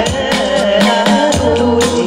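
Kinnauri folk dance music: a quick, steady drum beat, about three to four strokes a second, under a wavering melody.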